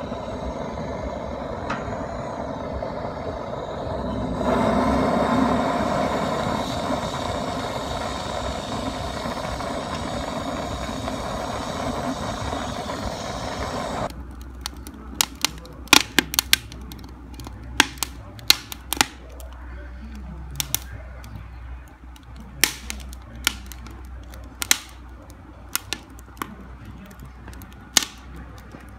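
Handheld gas torch hissing steadily as it lights wood kindling, growing louder about four seconds in. About halfway it gives way abruptly to a wood fire crackling, with many sharp pops.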